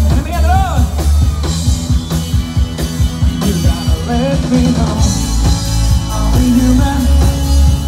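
Live rock band playing loudly: electric guitars, keyboard and drums with a heavy bass beat, and a singing voice over the top.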